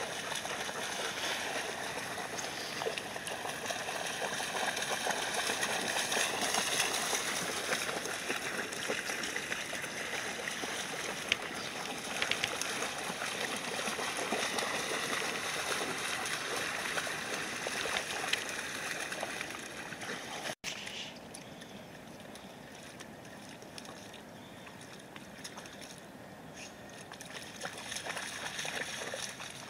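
Golden retrievers splashing as they wade and run through shallow river water, a steady rushing splash. About two-thirds in, it cuts off for an instant and continues quieter.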